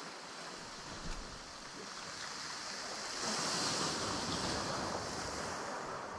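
Waves washing onto the shore, with a swell about three seconds in that eases off over the next couple of seconds, and some wind.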